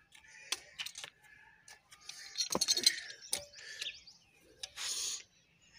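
Pipe wrench clicking and clinking against a plastic pipe fitting as its jaws are set and turned to tighten the joint, with a loud cluster of metallic clinks about two and a half seconds in and a short hiss near the end.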